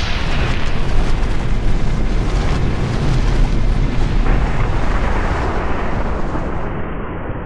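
Cinematic title-reveal sound effect: a loud, rushing blast of noise over a deep rumble, like a fiery eruption, that turns duller near the end.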